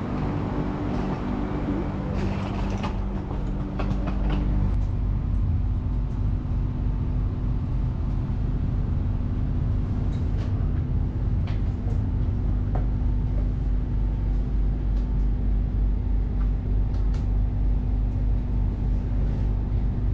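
Airport Rail Link train heard from inside the carriage while running: a steady low rumble with a constant hum and occasional faint clicks. A cluster of humming tones in the first few seconds gives way to a deeper rumble about four seconds in.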